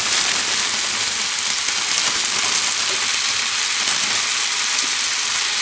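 Tuscan kale sizzling in a hot frying pan with onions and garlic, a steady hiss as it hits the oil.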